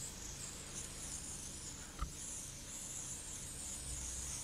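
Garden hose spray nozzle hissing steadily as its jet of water sprays onto a car's wet paintwork, with a brief faint tap about two seconds in.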